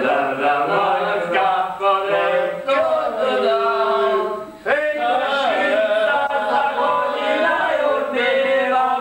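A group of men singing together in rough, loud unison, holding long drawn-out notes. The singing breaks off for a moment about halfway through, then starts again with a slide up in pitch.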